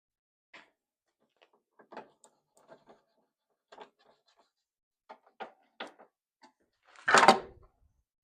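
Tractor side panels being handled and fitted onto the machine: scattered light clicks and knocks, then one louder clatter about seven seconds in.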